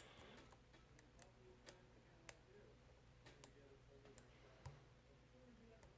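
Faint, irregular clicks of a lock pick working the pin tumblers of a Schlage Primus cylinder, about ten in all.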